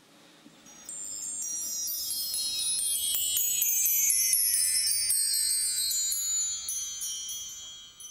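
Chimes: a cascade of high tinkling tones that starts about a second in, steps downward in pitch and fades out near the end.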